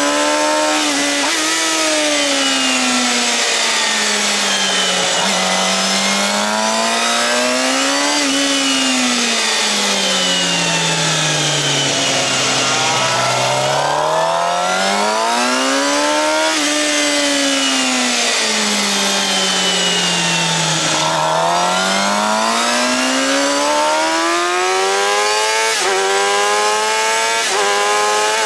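Suzuki GSX-R750's inline-four through a Yoshimura R-11 slip-on exhaust, heard on board at speed: the revs rise and fall over and over as the bike drives out of corners and slows into them, then climb steeply to a high pitch near the end. A steady rush of wind runs underneath.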